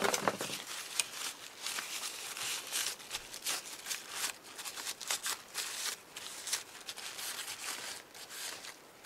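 Irregular light clicks and rustles of the small metal and plastic parts of a Brother KH801 knitting machine carriage being handled and moved by hand.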